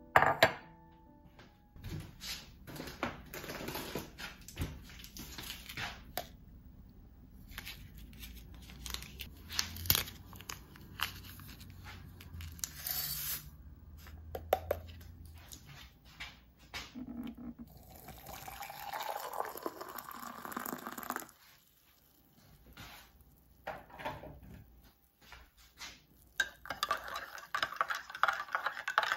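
Making a drink in a ceramic mug on a counter: scattered knocks and rustles as the mug is set down and a stick packet is tipped in, liquid poured into the mug about two-thirds of the way through, then a metal spoon stirring and clinking against the mug's sides near the end.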